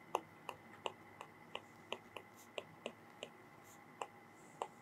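Faint, irregular clicks of a stylus tapping on a pen tablet while handwriting, about a dozen in a little under five seconds.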